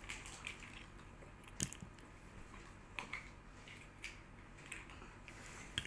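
Faint, scattered clicks and rustling of plastic toy pieces being handled and fitted together, a few separate clicks a second or more apart over a low room hum.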